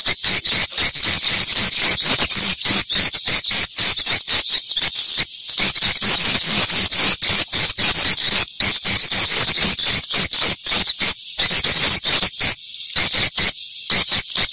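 Swiftlets twittering: a dense, continuous run of rapid high chirps and clicks, broken by brief pauses about five seconds in and near the end.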